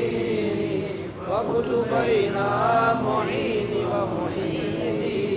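Slow Arabic devotional chant (salawat on the Prophet), sung with long drawn-out notes that waver up and down in pitch.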